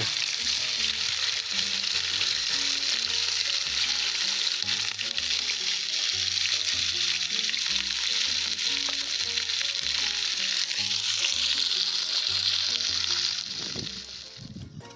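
Cubes of pork fat sizzling as they fry in a hot cast-iron kazan, stirred with a metal spatula at the start; the sizzle fades away near the end. Quiet background music runs underneath.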